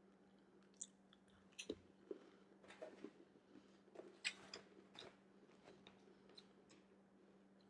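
Faint mouth sounds of biting and chewing a crisp seaweed cracker: a string of short crunches and clicks, loudest about a second and a half in and again about four seconds in.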